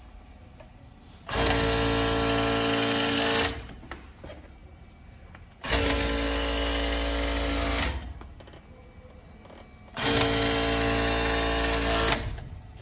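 Sevmak SK-988 direct-drive industrial overlock machine running at speed in three bursts of about two seconds each, with quiet gaps between, a steady whine over the rapid stitching noise. Each run ends with a sharp click as the machine stops.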